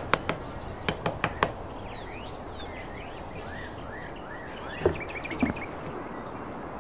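A miniature trowel clicks and scrapes in sand several times in the first second and a half. Birds then chirp in a run of short rising calls. Near the end come two soft thumps as a small cardboard house is set down on sand.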